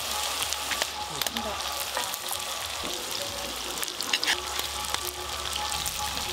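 Hot oil sizzling in a clay pot as fried whole spices are lifted out with a slotted steel spoon, with scattered sharp clicks and crackles.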